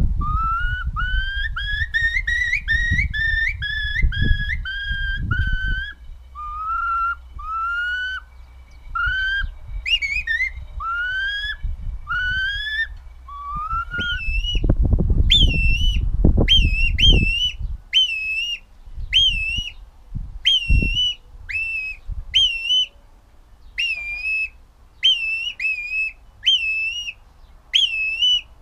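Finger whistling imitating bird calls: first a Eurasian curlew, a run of rising whistled notes, quick at first and then more spaced out. About halfway through it switches to a grey plover, a series of higher whistles that dip and then rise, about one a second. A low rumble sits under parts of it.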